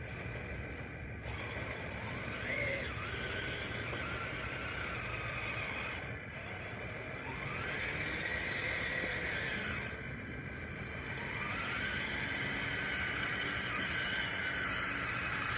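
DXR2 RC bulldozer on wide tracks pushing dirt: its drive motors whine, rising and falling in pitch as the throttle changes, over a steady mechanical noise from the running gear.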